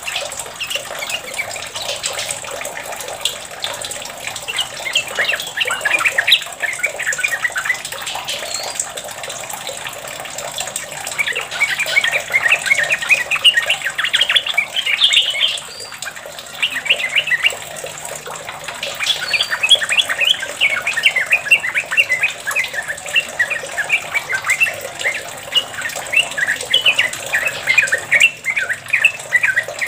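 Yellow-vented bulbul (trucuk) singing long runs of rapid, chattering chirps, with a short pause about halfway through.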